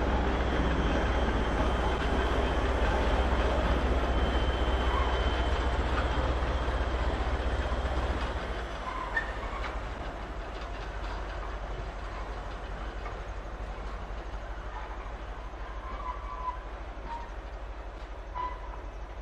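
Class 20 diesel shunting locomotive propelling a rake of loaded PCA cement wagons slowly, its English Electric V8 engine giving a steady low drone that drops to quieter running about eight seconds in. Short wheel squeaks and clicks come from the moving wagons.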